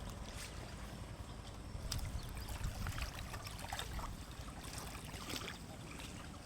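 Water sloshing, with scattered small splashes and crackles over a steady low rumble.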